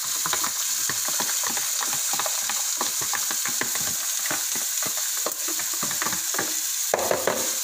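Diced red onion tipped into hot olive oil in a pot, frying with a steady sizzle and many small crackles as the pieces land in the oil.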